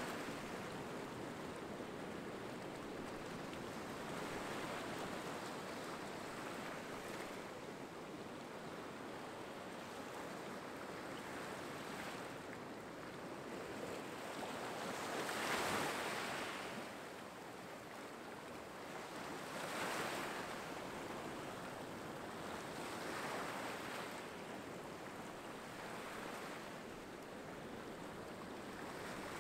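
Small waves washing in over a rocky, pebbly shore: a steady wash that surges louder every few seconds, loudest about halfway through.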